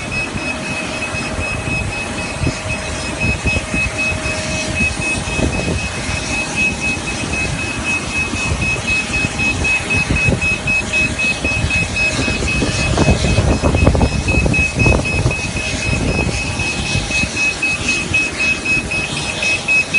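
Passenger boarding bridge's warning beeper sounding a high-pitched tone in rapid, even pulses, over a steady background of rumble and noise. The rumble grows louder for a few seconds past the middle, then eases back.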